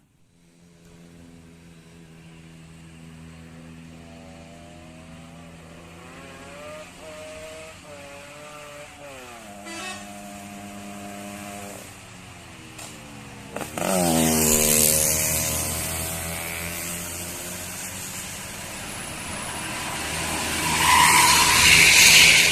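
Tour bus on an uphill road sounding a telolet multi-tone air horn: several tones at once, stepping up and down in a wavering tune. About fourteen seconds in the bus's engine and road noise suddenly grow loud as it passes, swelling again near the end.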